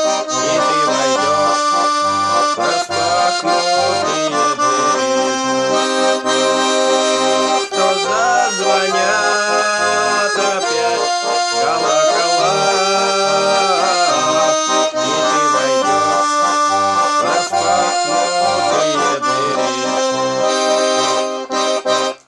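Garmon (Russian button accordion) playing an instrumental passage: a moving melody over a repeating bass accompaniment, stopping abruptly just before the end.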